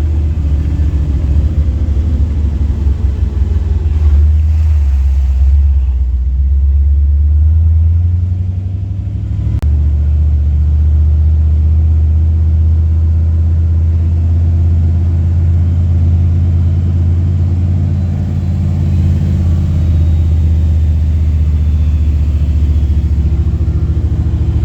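Jeep engine running steadily under way, a loud low drone, with a brief dip in the engine note about nine seconds in ending in a click before it settles back to the same steady running.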